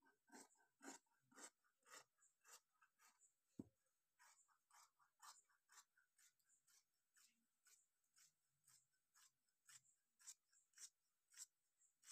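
Large tailor's shears cutting through trouser fabric, the blades closing in short faint snips about twice a second. There is one duller knock about a third of the way in.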